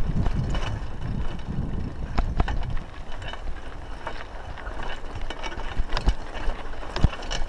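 Raleigh Ascent bicycle riding over a rough, rutted dirt track: tyres on loose dirt, with scattered rattles and sharp knocks from the bike over bumps, the loudest two near the end. A low rumble fades about three seconds in.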